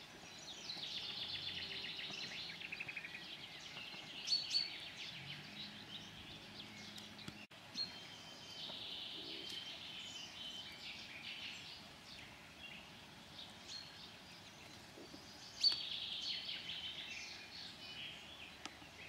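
Songbirds singing: high chirps and rapid trills coming and going in several phrases, over a faint steady outdoor background.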